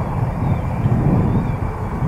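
Gusty wind buffeting the microphone, a fluctuating low rumble, over the steady low-power running of a Bombardier Learjet 75's twin turbofan engines on the ground.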